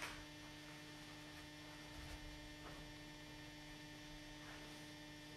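Near silence with a steady electrical hum, made of several fixed tones, and a few faint soft ticks.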